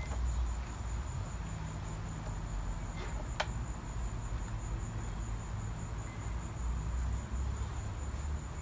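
Crickets trilling steadily in a high, thin, unbroken note, over a low rumble, with one sharp click about three and a half seconds in.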